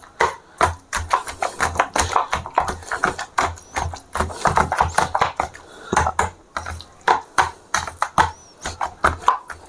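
Metal potato masher repeatedly pressing roasted eggplant, tomato and potato into a paste in a stainless steel bowl, its head knocking and clinking against the bowl in quick, irregular strokes.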